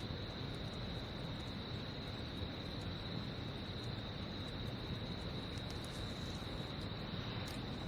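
Crickets singing in a steady, unbroken high drone over a low, even rumble of outdoor noise.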